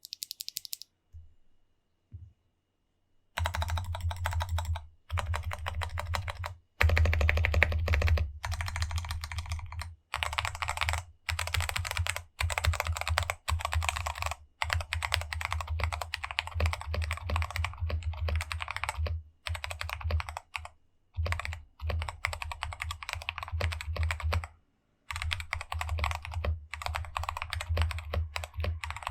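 Typing on a Ciy Tester68 mechanical keyboard fitted with stock, unlubed Gateron Brown tactile switches. Rapid keystrokes come in runs broken by short pauses, starting about three seconds in.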